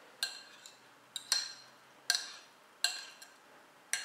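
Metal fork clinking against a small ceramic bowl as dressing is spooned out of it: about six sharp clinks under a second apart, each ringing briefly.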